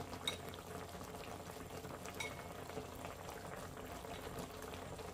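Sukiyaki broth simmering in a hot pot: a soft, steady bubbling. Two light clinks of tableware, about a third of a second and about two seconds in.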